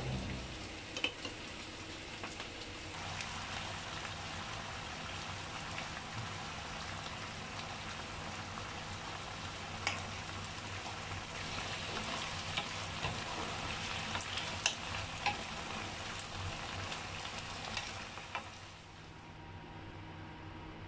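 Tofu and minced pork in sauce sizzling in a frying pan as the sauce is thickened, with a spoon stirring and scattered clicks and scrapes against the pan. The sizzle drops to a quieter hiss near the end.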